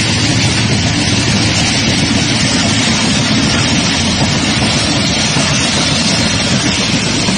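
Pakistan Railways passenger coaches rolling past, their wheels running on the rails: a loud, steady noise that does not change.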